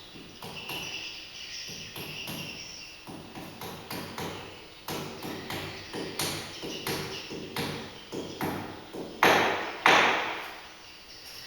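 Hammer tapping a plastic wall plug into a hole drilled in a concrete wall: a steady run of light taps, about two a second, ending with two hard blows.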